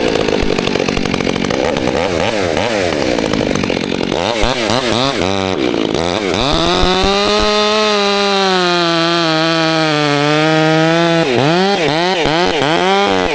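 Chainsaw revving up and down in quick repeated blips, then held at high throttle for about five seconds with its pitch drifting slowly lower as if under the load of a cut, then blipping again near the end.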